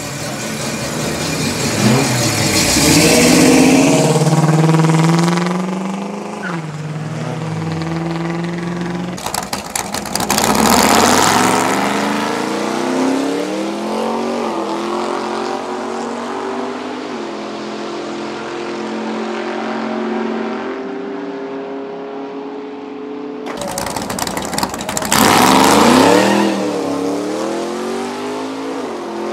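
Muscle-car engines accelerating hard. First a first-generation Pontiac Firebird pulls away, its engine note rising through a gear change. Then drag-strip launches follow, with engine notes climbing through the gears, and two loud passes close by.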